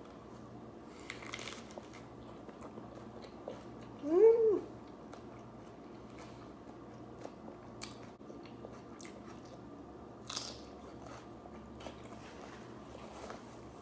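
Biting into and chewing a crunchy romaine lettuce wrap, with scattered soft crunches. About four seconds in comes a short closed-mouth hum that rises and falls in pitch, the loudest sound.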